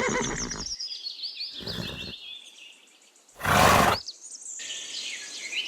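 Pony making three breathy bursts of noise with no clear pitch. The last, about three and a half seconds in, is the loudest. Birds chirp faintly in the background.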